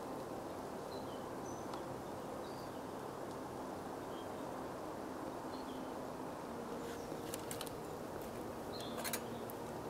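Steady outdoor forest ambience with a few faint bird chirps in the first half. Later come several light metallic clicks and clinks from a wire grill basket being handled, loudest near the end.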